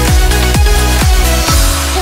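Electronic dance music with a deep kick drum about twice a second under a sustained synth bed; the beat drops out near the end.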